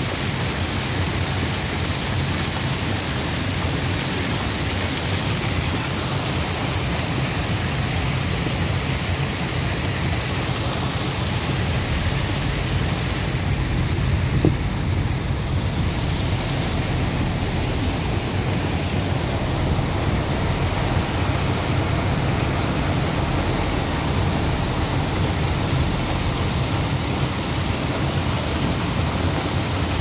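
Storm runoff cascading down a rock face in a steady rush of water, with a low rumble underneath.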